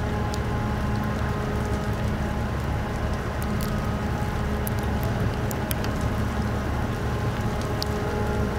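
The car ferry Okesa Maru's engines and machinery running during berthing: a steady low rumble with a constant hum, and scattered light ticks over it.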